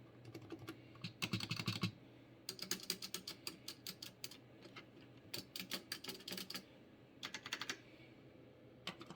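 Typing on a Logitech G810 Orion mechanical keyboard with Romer-G switches: quick runs of key presses in about six bursts, with short pauses between them.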